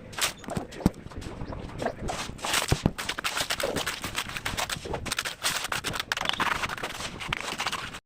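Irregular knocks, clicks and scraping, typical of hand work on a building site, with a few sharper knocks standing out.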